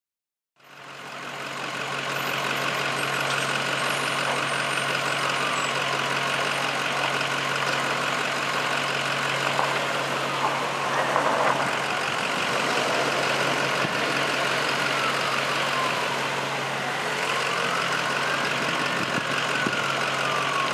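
An engine idling steadily with a constant low hum and a continuous rushing noise, fading in during the first second or two. A siren wails slowly up and down in the background, rising and falling several times.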